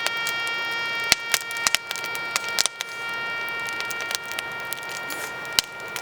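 Fire crackling and popping with irregular sharp snaps, as a flag burns. A steady pitched tone is held throughout underneath.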